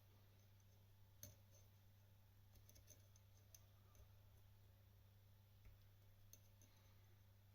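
Faint, scattered clicks of a Lishi MAZ24 pick working the wafers inside a Mazda 6 door lock, over a low steady hum. The sharpest click comes about a second in, with a small cluster around three seconds and a few more later.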